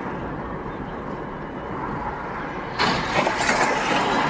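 Steady road and engine noise of a moving car, then about three seconds in a sudden loud burst of noise lasting about a second and a half, typical of a collision.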